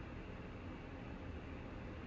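Steady low hiss with a faint hum underneath: background room tone picked up by the microphone, with no distinct event.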